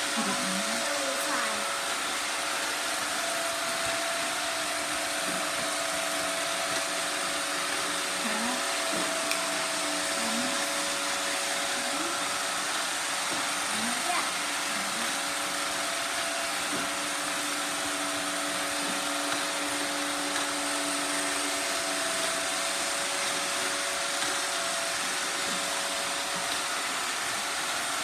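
An iRobot Roomba 670 robot vacuum and a Pyle Pure Clean robot sweeper running together: a steady motor whir with a few fixed tones over an even hiss.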